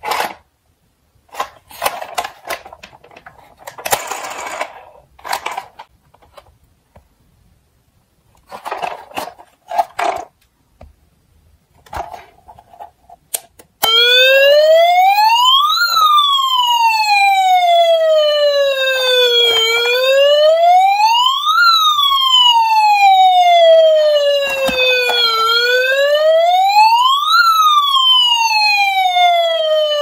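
Plastic toy trucks being handled, with scattered clicks and rattles. About halfway through, a battery-powered toy fire truck's electronic siren starts up and wails on steadily, each cycle rising quickly and falling slowly, about every six seconds.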